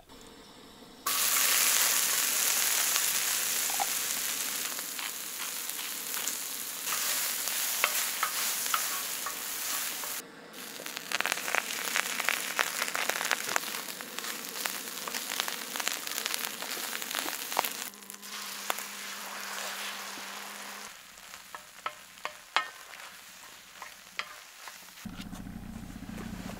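Meat and diced bell peppers sizzling on a large round disc griddle over a propane burner, with clicks and scrapes of a utensil stirring the food. The sizzle drops away about two-thirds of the way through, leaving only a few scattered clinks.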